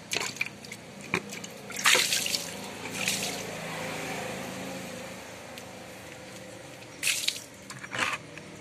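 Water dripping and trickling off a freshly rinsed pressure-washer pump onto a wet concrete floor, with a few short, irregular splashes.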